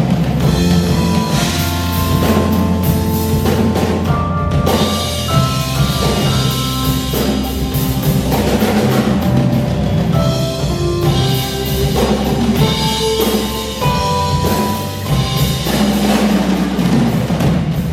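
A live band playing an instrumental passage: drum kit with held pitched notes over a steady bass line.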